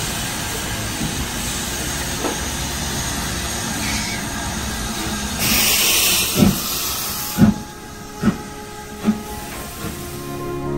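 LMS Stanier Black Five 4-6-0 steam locomotive no. 5428 getting under way, with a steady hiss of escaping steam. About halfway there is a louder burst of hiss from the open cylinder drain cocks, then five exhaust chuffs that come slightly faster each time.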